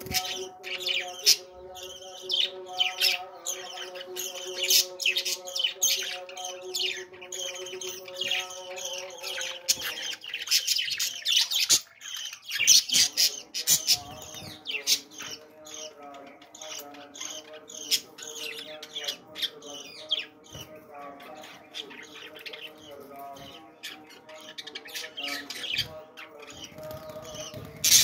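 A flock of budgerigars chattering in an aviary: a steady stream of rapid, high chirps and squawks from many birds, over background music with held notes.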